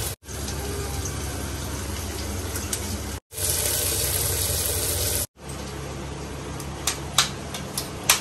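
Food sizzling as it fries in an aluminium pressure cooker, heard as a steady hiss in edited pieces with abrupt cuts. After the last cut there is a quieter background with a few light taps near the end.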